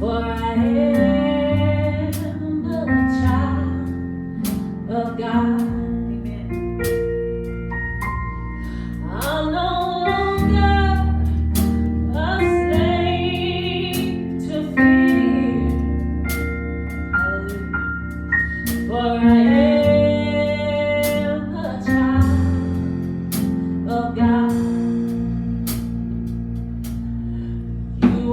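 Praise team performing a gospel worship song: singers over a band with bass, guitar and a steady beat.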